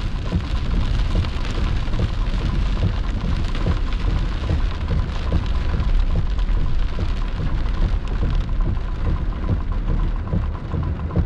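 Heavy rain hitting the windshield and roof of a moving car, heard from inside the cabin as a dense crackle of drops over a steady low rumble.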